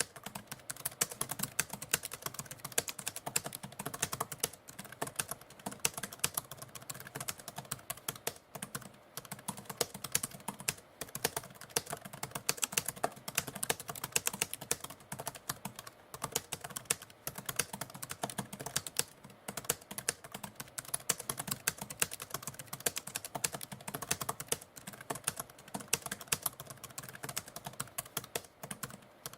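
Manual typewriter typing in a continuous, irregular stream of key strikes, several a second, with brief pauses.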